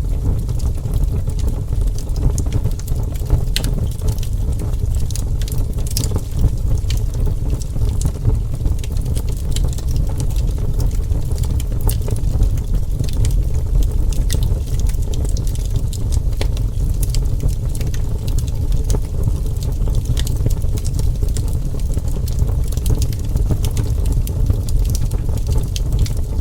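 Wood fire burning: a steady low rumble with frequent, irregular sharp crackles and pops of the burning wood.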